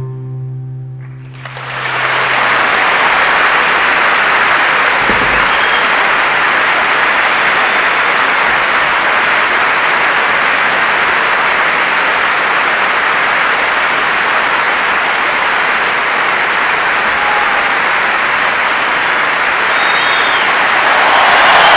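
Audience applauding at the end of a live song. The clapping swells in about two seconds in as the last guitar chord dies away, then holds loud and steady, with a few whistles near the end.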